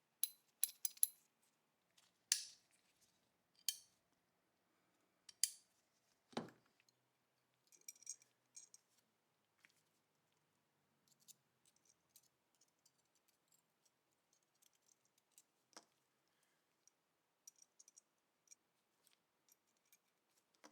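Sharp metallic clicks and clinks of small steel pistol parts being handled and fitted together: a quick cluster of clicks at first, then single clicks every second or so. A duller knock comes about six seconds in, followed by faint light ticking.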